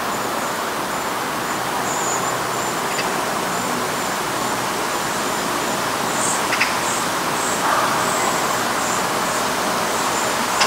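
Steady background noise of distant road traffic, with a faint high-pitched tone coming and going.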